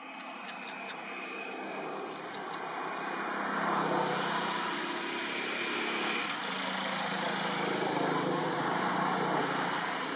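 A vehicle passing by: a rushing motor-and-tyre sound that swells over several seconds, holds, and begins to fade near the end.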